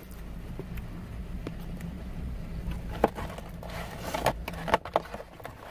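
Low steady vehicle rumble, with a few sharp clicks and crackles from eating and handling food in the second half.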